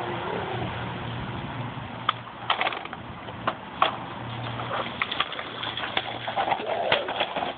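Toy truck playing: a low hum that cuts in and out, with scattered sharp clicks and knocks from about two seconds in.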